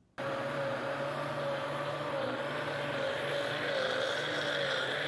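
Electric countertop blender switching on just after the start and running steadily, its motor whine dipping and recovering slightly in pitch as it purées chopped cashew apples with a little water into a thick pulp.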